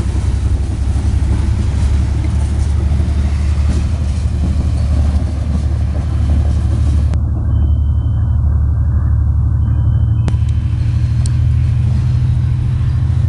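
Freight train of tank cars rolling past close by: a loud, steady low rumble of the wheels on the rails.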